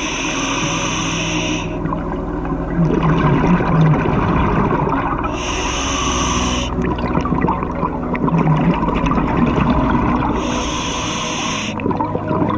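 Scuba diver breathing through a regulator underwater: three gushes of exhaled bubbles, each about a second and a half long and about five seconds apart, with a lower gurgling sound from the regulator between them.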